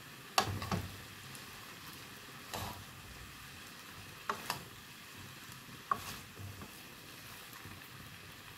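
Rice frying in a two-handled metal pan, a steady faint sizzle, as it is turned over with a wooden spoon and a metal spoon. Several sharp clinks and scrapes of the spoons against the pan are scattered through it.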